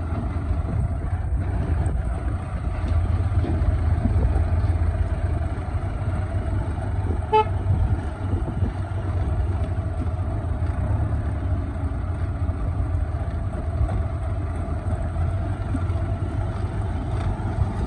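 JCB 3DX backhoe loader's diesel engine running steadily as the machine drives along a dirt track, a constant low rumble. One short horn toot sounds about seven seconds in.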